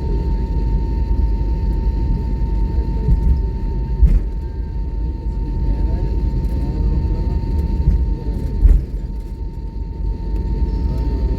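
Airliner cabin noise on the ground after landing: a steady low rumble of the engines with a constant high whine. Two sharp knocks come about four seconds in and near nine seconds.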